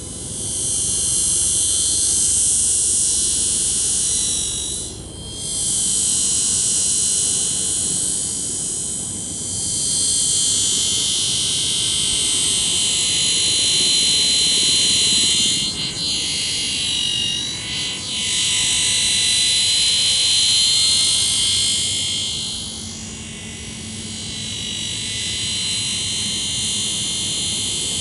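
Radio-controlled Helimax Blackhawk scale helicopter in flight: a loud, high-pitched whine from its motor and rotors. The whine swells and fades as it flies about, dipping in pitch and level a few times, most clearly twice in quick succession about two-thirds of the way through.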